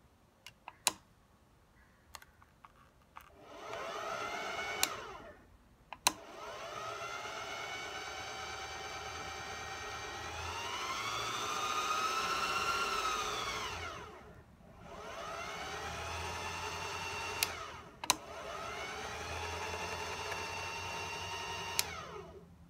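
Singer Heavy Duty sewing machine motor whining as it winds a bobbin. It starts and stops four times with sharp clicks of a foot switch, rising in pitch each time it spins up. In the longest run it speeds up further and then slows again as the speed-control slider is moved.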